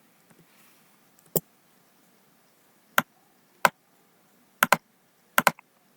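Sharp clicks of computer keys being pressed, a few single presses and then two quick double clicks near the end.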